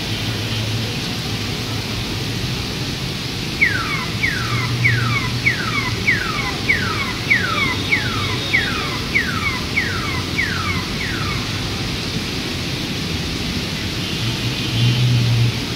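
Storm rain falling steadily on a city street. Through the middle of it, a high chirp that falls in pitch repeats about twice a second for some seven seconds.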